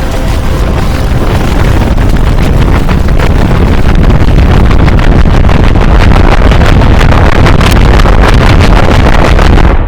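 Very loud, heavily distorted noise with a deep rumble and crackle, the kind of blown-out audio effect used in logo edits, swelling over the first few seconds and then cutting off abruptly near the end.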